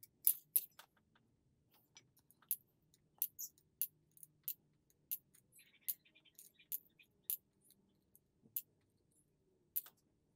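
Lead shotgun pellets dropped one at a time into the small metal pan of a digital pocket scale, each landing with a sharp click, about one every half second, as twenty pellets are counted out for weighing.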